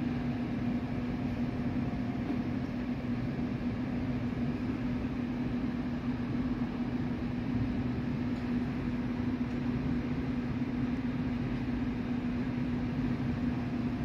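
Storm wind blowing in through a building's open glass entrance doors: a steady rushing noise with a constant low hum running through it.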